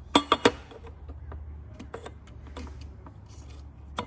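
A steel pick tool clicking and scraping against a metal coolant tube flange as old seals are pried off: three sharp clicks just after the start, lighter scattered ticks, then one more sharp click near the end. A steady high-pitched insect drone runs underneath.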